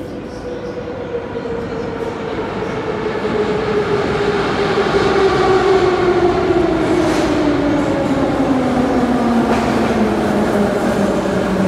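Minsk Metro train pulling into the station: its rumble grows louder over the first few seconds, and its traction motors give a whine that falls steadily in pitch as the train slows to a stop.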